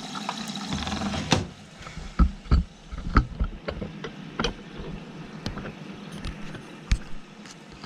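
Hotpoint WMA40 front-loading washing machine drawing in water at the start of its pre-wash, with a steady low hum. Irregular knocks and sloshing are heard throughout.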